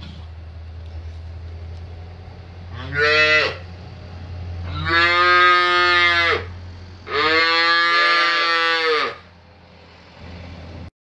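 Young calves mooing: three calls, a short one about three seconds in, then two longer ones of about one and a half and two seconds.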